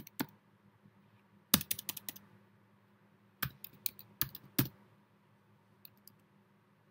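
Keystrokes on a computer keyboard: a couple of taps at the start, a quick run of typing about one and a half seconds in, another run from about three and a half to nearly five seconds, then a few faint taps near the end.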